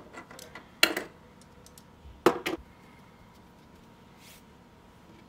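Handling noise from a RØDE on-camera shotgun microphone and its plastic mount being picked up and turned in the hands on a wooden desk: two sharp knocks, about one and two seconds in, and a few lighter clicks.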